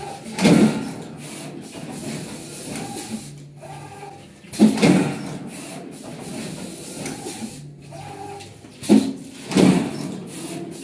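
WIRESTAR PB-580S automatic calendar punching and wire-binding machine running its cycle: a steady machine hum broken by loud mechanical clunks about half a second in, near five seconds, and twice close together near nine to ten seconds.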